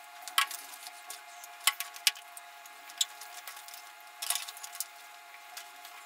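People eating up close: wet, squishy chewing and mouth smacks, with short sharp clicks about once a second over a faint steady hum.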